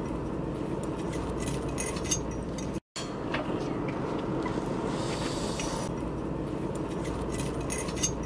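Steady low background rumble and hum with scattered faint clinks and ticks, broken by a brief total dropout about three seconds in.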